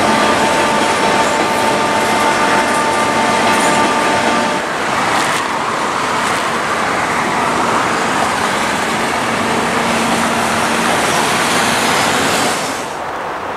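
A train of empty coal hopper cars rolling past on steel rails: a loud, steady wheel-on-rail noise, with a few steady high tones over it for the first few seconds. It grows quieter near the end.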